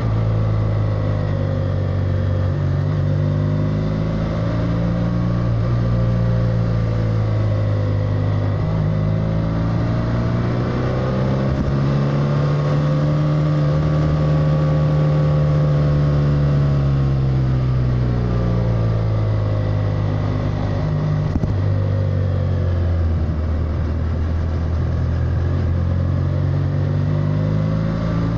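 BMW F800R's parallel-twin engine running under way, its revs rising and falling slowly with the throttle: climbing to their highest about halfway through, dropping off, then climbing again near the end.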